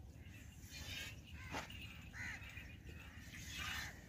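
Milk squirting in short hissing spurts into a steel pot as a cow is milked by hand. A crow caws once about two seconds in.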